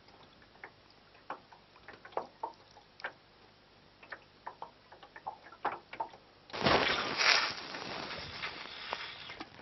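Small ticks and light water lapping against a small aluminium boat's hull. About six and a half seconds in, a sudden rush of wind noise on the microphone lasts about three seconds.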